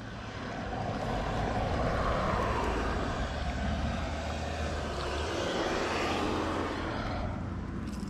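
A motor vehicle passing by, its engine hum and tyre noise swelling over the first two or three seconds and then slowly fading.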